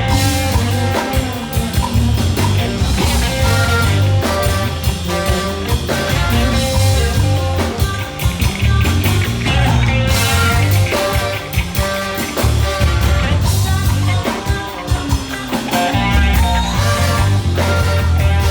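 Live band music: an Afro-funk electronic band playing with heavy bass, drums and guitar, with some singing.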